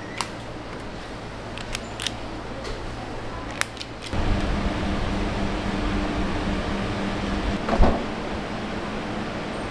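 Factory workroom hum with a few sharp light clicks as earbuds are set into plastic trays. About four seconds in it steps up to a louder, steady machine hum with a low drone, and a single thump sounds near the end.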